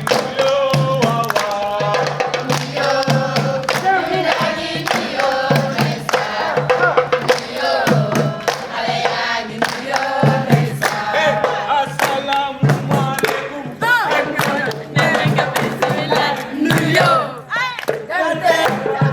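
A group of voices singing together, with a steady rhythm of sharp percussive strokes and a low repeating beat.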